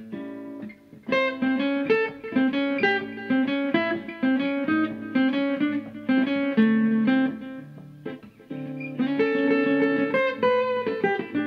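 Steel-string acoustic guitar playing a single-note blues-jazz lick on the MixoBlues scale (Mixolydian mixed with the blues scale), with hammer-ons from the minor third to the major third. The notes start about a second in, pause briefly about eight seconds in, then a last phrase follows.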